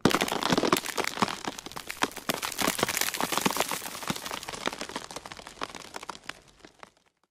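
Bone-cracking sound effect of the kind used for Vecna's kills in Stranger Things season 4: a dense, irregular run of sharp cracks and crunches that thins out and fades away.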